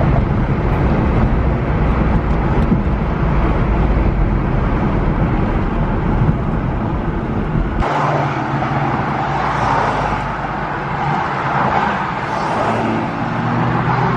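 Road noise from a car driving, a heavy low rumble. About eight seconds in it changes abruptly to a lighter hiss with a steady low hum.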